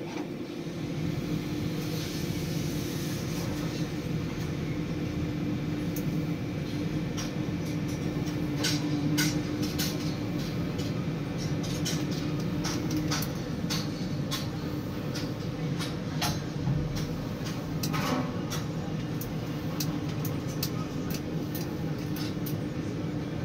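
Tower crane slewing with a suspended 14-ton precast concrete panel, its drive machinery humming steadily as heard from inside the operator's cab. A steady tone in the hum fades about halfway through, and scattered sharp clicks sound throughout the second part.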